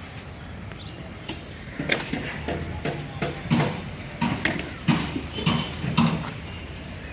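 A series of about nine sharp knocks or strikes, roughly two a second, starting about a second in and stopping about six seconds in.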